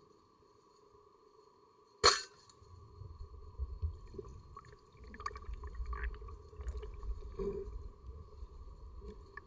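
Rob Allen 120 speargun fired underwater: a single sharp crack about two seconds in, followed by low rumbling water and handling noise.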